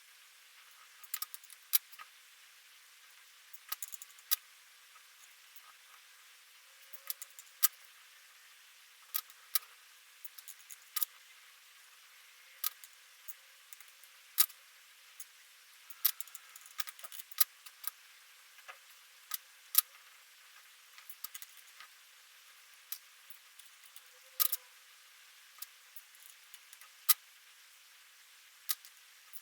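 Irregular sharp metallic clicks and taps, a few every second or two, from a West 917 pin tumbler lock being taken apart, its small pins and parts handled with tools.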